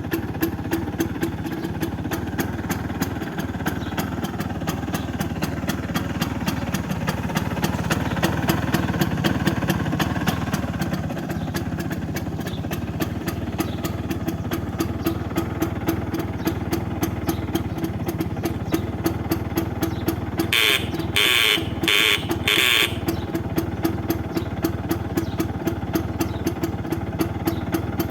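1977 Bajaj 150 scooter's single-cylinder two-stroke engine idling with an even, rapid beat, rising a little for a few seconds partway through. About two-thirds of the way in, a horn sounds four short beeps.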